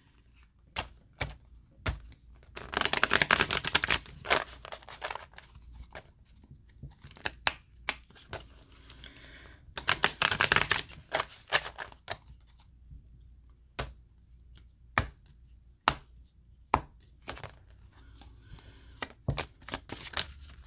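A deck of oracle cards being shuffled by hand: two riffle shuffles, each a fast flutter of card edges lasting a second or two, about two seconds in and again about ten seconds in, with scattered single card taps and slaps between them.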